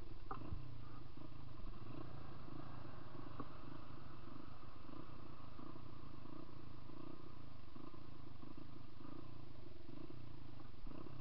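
Dirt bike engine running steadily with no revving: an even, pulsing low rumble, with a couple of faint clicks.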